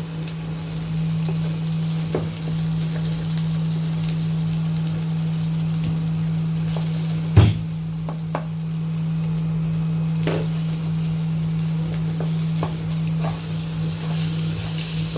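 Eggs sizzling as they fry in a pan while a utensil stirs and breaks them up, tapping and scraping against the pan, with one louder knock about seven seconds in. A steady low hum runs underneath.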